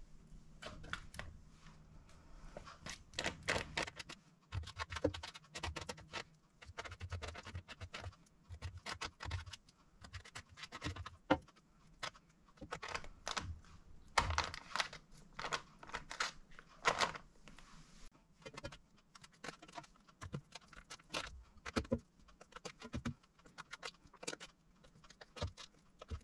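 Irregular light taps, clicks and scrapes of a silicone pastry brush dipping into a china teacup and dabbing egg wash onto puff pastry on parchment paper in an air fryer drawer.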